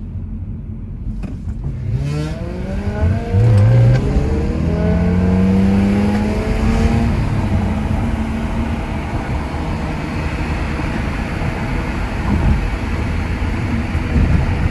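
A performance car engine pulling hard under full acceleration: its pitch climbs, drops at a gear change about four seconds in, climbs again, and then holds a high, steady note.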